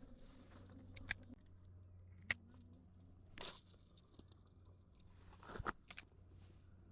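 Quiet outdoor background with a low steady hum, broken by a few sharp clicks and two brief swishes or rustles.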